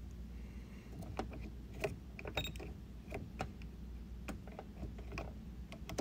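Faint, irregular light clicks and handling noise from wires and plastic wire nuts being moved about in a dishwasher's electrical junction box, with a voltage tester pen pressed against them.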